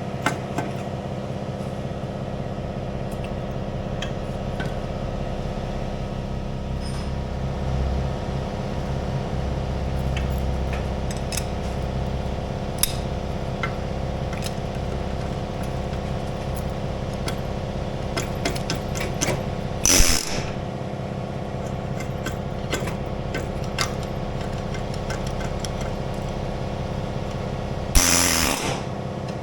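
Hand tools working steel on a skid steer's quick-attach pins and bushings: scattered light metal clicks and taps over a steady mechanical hum. Two short, loud noisy bursts come about twenty and twenty-eight seconds in.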